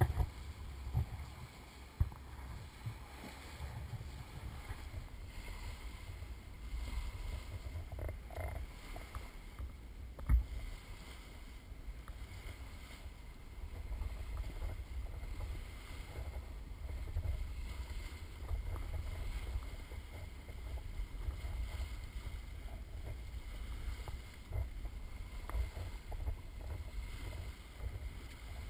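Rumble and rush of wind and water around a sailboat's bow as it motors along, with a faint steady high whine underneath. A few sharp knocks, one near the start and one about ten seconds in.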